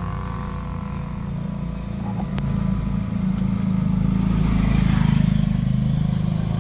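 Motorcycle engine running as it approaches, growing steadily louder and loudest about five seconds in.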